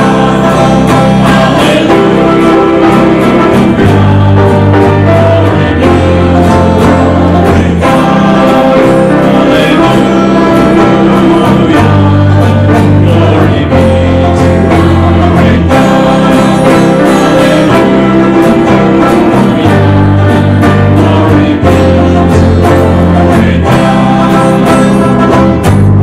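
Church worship music: a band playing a slow song with singing, its bass notes changing every couple of seconds.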